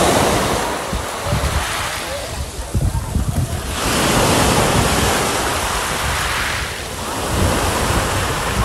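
Small Black Sea waves breaking and washing up a pebble beach, swelling in about every three to four seconds, with wind buffeting the microphone.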